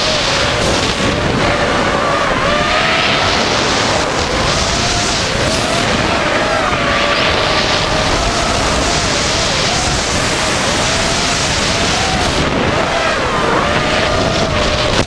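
A racing quadcopter's four Emax RS2205 brushless motors spinning DAL propellers, recorded by the onboard camera. They make a buzzing whine that wavers up and down in pitch as the throttle changes, over a steady rushing noise from prop wash and wind.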